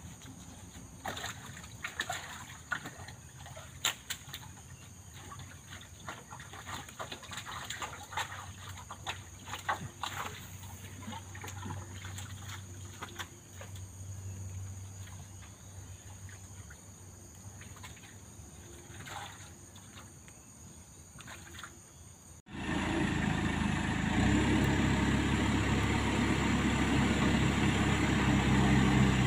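Faint scattered clicks and rustles, then after a sudden cut about three-quarters of the way through, a diesel engine running steadily and loudly.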